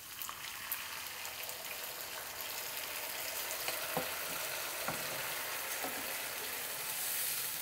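Coconut milk poured into a hot non-stick pan of ghee-fried basmati rice, sizzling steadily and growing a little louder as it spreads. A wooden spatula stirs it, with a couple of light knocks against the pan about four and five seconds in.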